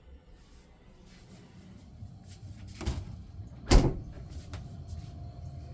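A freezer door being pulled open: a knock, then a louder thump under a second later, over a low steady hum.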